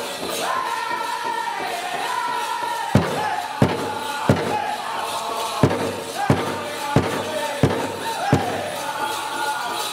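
Powwow drum group singing a men's chicken dance song: high voices sing in falling phrases. About three seconds in, hard strikes on the big drum begin, roughly one and a half per second.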